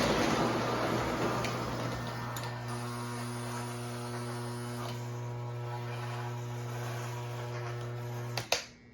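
Steady electrical hum from an O gauge model train layout's power, with louder running noise fading out over the first couple of seconds. Near the end a sharp click sounds and the hum cuts off, as the power is switched off.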